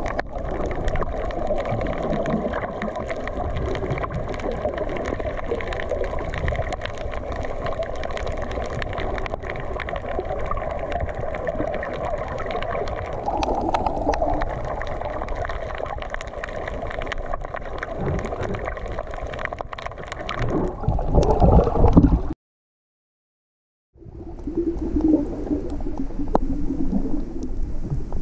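Muffled underwater water noise picked up through an action camera's waterproof housing: steady rushing and gurgling with fine crackling clicks. It swells about three quarters of the way through, drops out to complete silence for a second and a half, then resumes.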